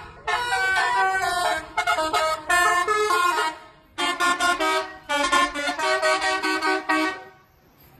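Bus telolet horn playing a tune: several horn notes in quick succession, stepping up and down in pitch. It plays two phrases with a short break near the middle and stops about seven seconds in.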